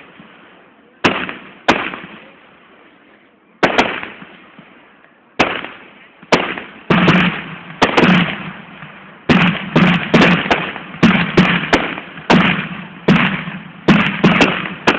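Fireworks bursting: loud sharp bangs, each followed by a fading echo. They come a second or two apart at first, then quicken to a rapid run of more than one bang a second from about halfway.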